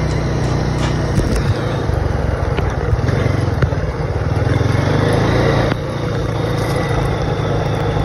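Honda ATV engine running steadily while riding on a gravel road, with tyre and wind noise over it. The engine eases a little about two-thirds of the way through.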